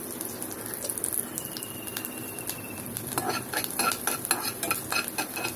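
Chopped garlic sizzling in hot oil in a pan, with a spatula stirring and clicking against the pan from about three seconds in.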